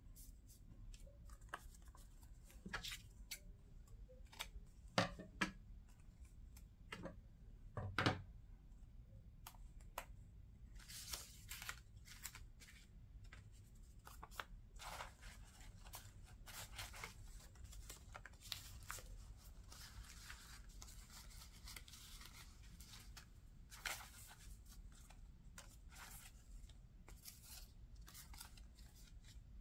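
Paper ephemera being handled by hand: tags, old photographs and paper scraps rustling and sliding against each other and being set down on a tabletop. The sound is faint, with a few soft knocks in the first part and busier, more continuous paper rustling in the second half.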